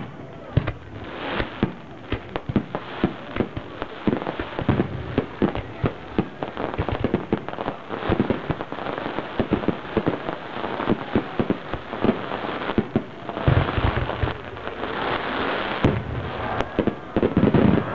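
Fireworks bursting, with dense crackling: many sharp pops in quick, irregular succession. There is a heavier boom and thicker crackle about three-quarters of the way through.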